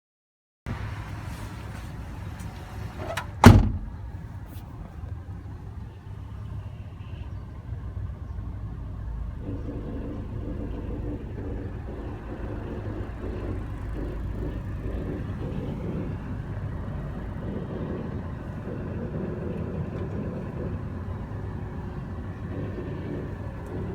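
Car heard from inside the cabin while driving, a steady low road-and-engine rumble, with one sharp loud knock a few seconds in.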